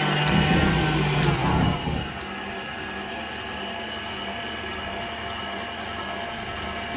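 Electric mixer running, loud for the first two seconds, then dropping to a quieter, steady lower hum.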